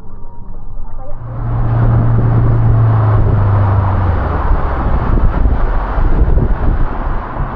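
Speedboat engine running, with rushing water and wind noise that rise about a second in. A strong low hum holds steady, then drops lower about four and a half seconds in.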